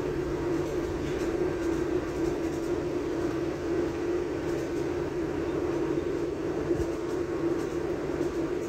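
Renfe Cercanías commuter train running at speed, heard from inside the carriage: a steady drone over even rolling noise.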